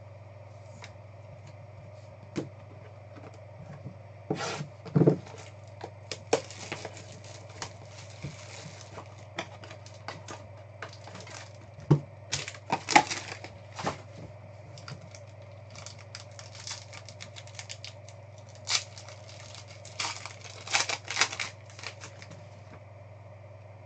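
Foil trading-card packs being torn open and crinkled, and cards shuffled and tapped down on the table, in an irregular string of crackles and taps. A steady low hum runs underneath.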